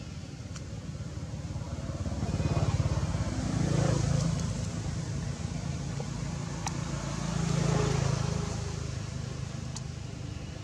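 Motor vehicles passing by one after another: a low engine and road rumble swells up and fades away twice, peaking about a third of the way in and again near two-thirds through.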